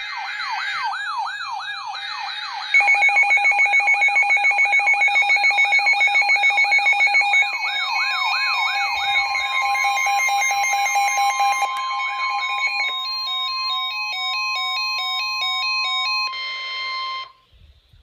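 Weather alert radios sounding their alarms together: a fast repeating warbling siren with a loud rapid beeping over it for a few seconds, then the steady single-pitched NOAA Weather Radio warning alarm tone, which cuts off abruptly near the end. It is the alert for an incoming weather warning.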